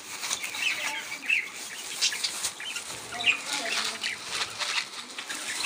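Caged lovebirds chirping in short, repeated calls, with light clicks and rattles of seed in a plastic feeding dish being handled.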